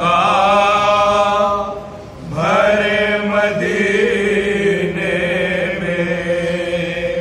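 Unaccompanied male chanting of an Urdu marsiya lament, sung in long drawn-out notes: one phrase, a brief dip about two seconds in, then a second long phrase.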